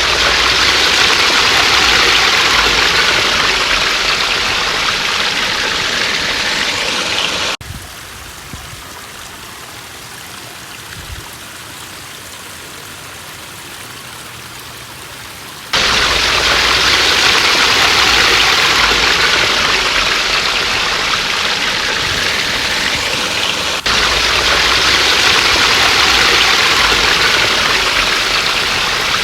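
Backyard pond waterfalls and streams running, water rushing and splashing over the rocks. It drops to a quieter rush for several seconds in the middle, then comes back loud.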